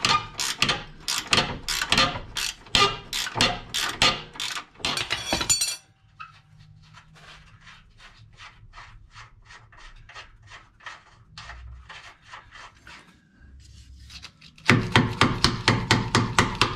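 Ratchet wrench clicking in quick, even strokes as a Jeep Wrangler JK's rear track bar bolt is backed out after being broken loose. The clicking turns fainter for several seconds in the middle, then loud again near the end.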